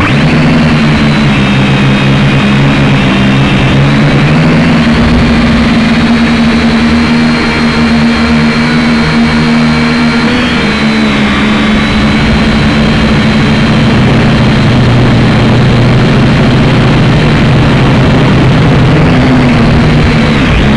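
Syma X5C quadcopter's small motors and propellers buzzing loudly, heard through the drone's own onboard camera. A steady whine that shifts in pitch a few times as the throttle changes, most clearly about four seconds in and again about halfway.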